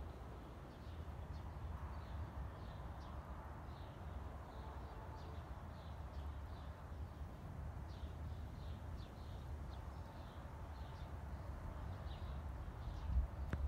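Small birds chirping in short, irregular calls over a low, steady rumble, with a single brief knock near the end.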